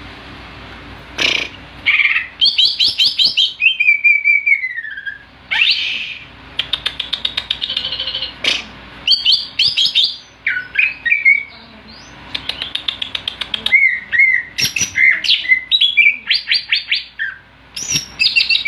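A songbird, the 'jamtrok', singing in broken phrases of fast rattling trills, sharp chirps and whistled notes that slide downward, with short gaps between phrases. The rattle ('ngorok') song comes out unevenly, starting and stopping rather than running on steadily.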